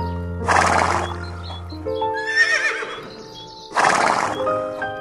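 A horse whinnies once, a high wavering call about two seconds in, with two harsh noisy bursts of breath around half a second and near four seconds. Background music with sustained notes plays under it.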